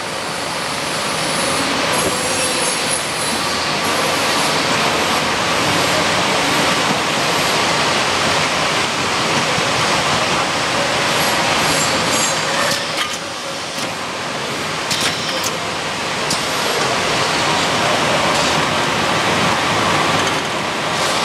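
Omega automatic case packer and the folder-gluer line feeding it, running: a loud, steady machinery noise with a few sharp clicks as cartons are packed into corrugated cases.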